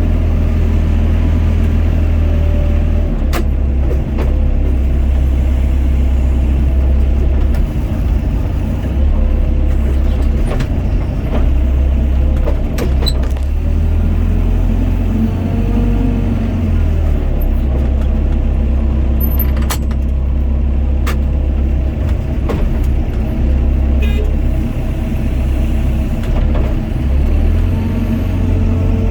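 Doosan DX55 mini excavator's diesel engine running steadily under working load, with a whine that rises and falls as the hydraulics work. Several sharp knocks, a few seconds apart, come through over the engine.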